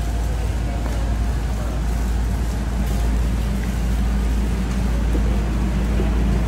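Steady low rumble of shopping carts rolling over a concrete warehouse floor, with the general hubbub of a busy store.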